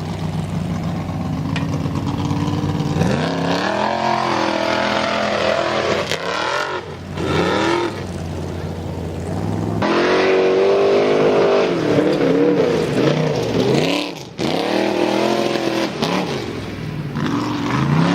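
Formula offroad car's engine running loud, steady for the first few seconds, then revving hard over and over, its pitch climbing and falling repeatedly, with a couple of brief drops in level.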